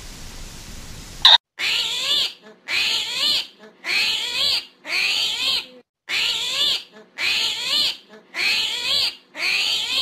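Armadillo giving a run of about eight short squealing calls, roughly one a second, each wavering in pitch.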